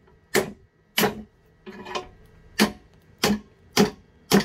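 Hand hammer striking a rusty bench vice, metal on metal, about seven blows at a steady pace of roughly one every 0.6 seconds, each with a brief ring; one blow near the middle is lighter.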